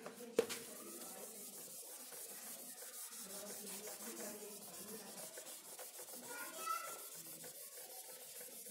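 A handheld whiteboard eraser wiping marker writing off a whiteboard: a faint, steady rubbing, with a light knock about half a second in.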